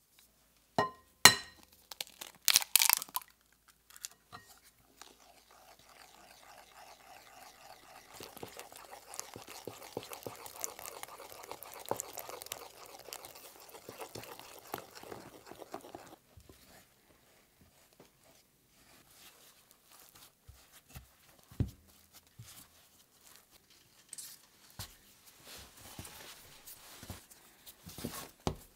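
A few sharp knocks near the start. Then a wooden spoon stirs wet yeast dough in a glass bowl, a soft, sticky, crackling scrape lasting about ten seconds. Near the end, hands knead the dough on a wooden board, with scattered soft thuds and rustles.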